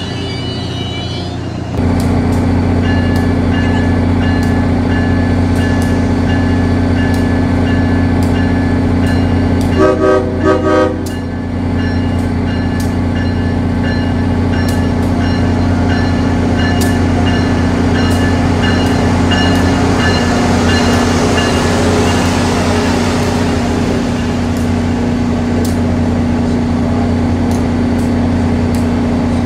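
Amtrak Acela Express trainset running in along the platform with a loud, steady electric hum and whine from its power car. Three quick horn toots sound about ten seconds in. A hiss swells about twenty seconds in as the cars roll by, with scattered sharp clicks throughout.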